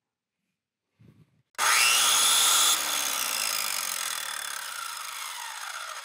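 Power-tool sound effect: a short low buzz, then about a second and a half in a loud whining, cutting noise starts suddenly, and after about a second it fades away over several seconds, its pitch falling as the tool winds down.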